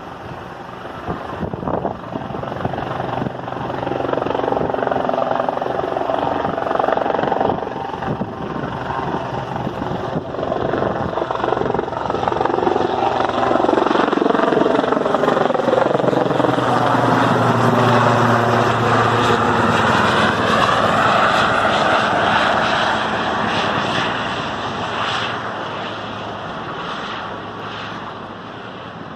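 An aircraft flying low overhead. It grows louder over the first few seconds, is loudest past the middle with a sweeping, shifting tone, then fades away near the end.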